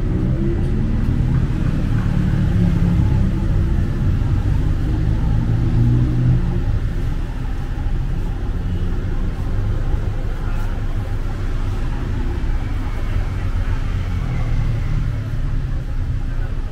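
Motor traffic passing close by on a street: a loud, steady low engine rumble, heaviest for the first several seconds and again near the end.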